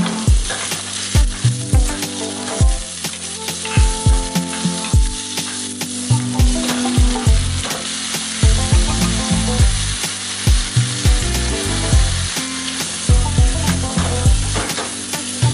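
Chicken and onions frying in a stainless steel pan and being stirred with a wooden spoon, under background music with a steady beat and a bass line.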